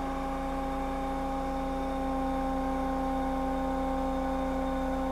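Hydraulic power unit's pump and motor running with a steady hum and whine, the pump under load as its flow passes over a crossport relief valve being screwed in to a 700 PSI setting. It gets slightly louder about two seconds in.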